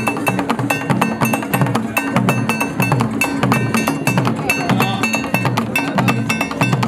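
Traditional drum ensemble of large peg-tuned barrel drums beaten with curved sticks, playing a fast, dense, repeating rhythm. Low drum thuds run under sharp stick strokes, with a short high ringing note recurring through the pattern.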